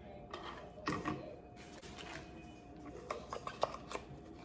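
Decor pieces being handled and set down, with rustling. There are two sharp knocks about a second in and a quick run of light clicks and taps near the end.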